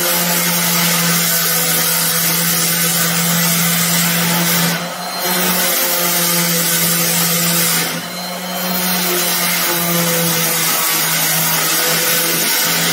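Electric random orbital sander running with its disc pressed against a metal car grille: a steady motor hum under a dense sanding hiss. The sound dips briefly twice, about five and eight seconds in.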